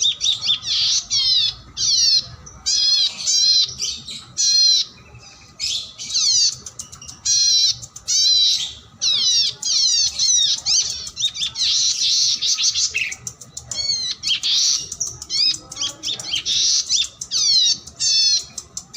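Oriental magpie-robin (kacer) singing: loud, fast phrases of sweeping whistles and harsher notes, one burst after another with short gaps.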